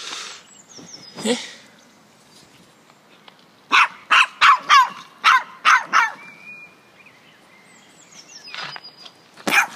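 Dog barking: a quick run of about seven high-pitched barks, then one more near the end.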